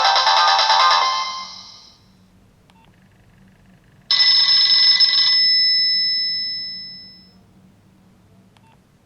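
Nokia 6070 mobile phone playing ringtones through its loudspeaker. A multi-note melody fades out over the first two seconds. About four seconds in, a short bell-like chime starts suddenly and rings out over about three seconds.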